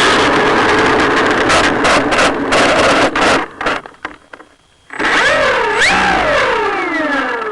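Radio-controlled model airplane engine running loud and close with a crackling sound, cutting out about three and a half seconds in. After a short quiet gap, a model airplane engine's pitch wobbles up and down, then slides steadily down.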